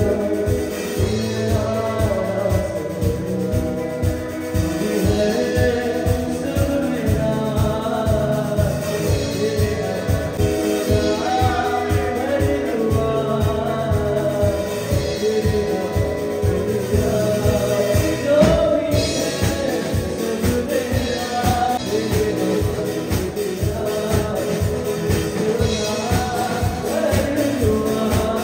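Live band playing a song: a male singer over electric guitar, keyboard and drum kit, with a steady beat.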